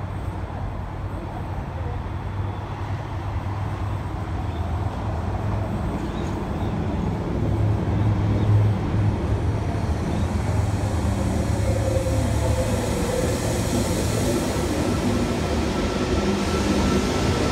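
NSW TrainLink V-set double-deck electric intercity train approaching and pulling into the platform. A low rumble grows steadily louder, and a steady high tone comes in over the last couple of seconds as the train slows alongside.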